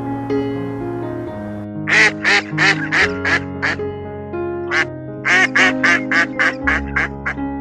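A duck quacking in two quick runs of short calls, about six and then about nine, over background music with held notes.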